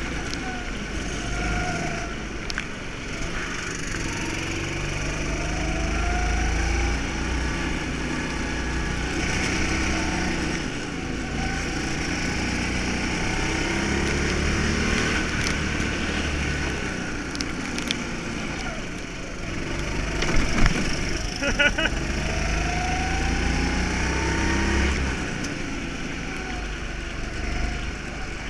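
Go-kart engine heard from the driver's seat, running under throttle, its pitch rising and falling again and again as the kart speeds up and slows, over a steady rush of wind. A few sharp knocks come about two-thirds of the way through.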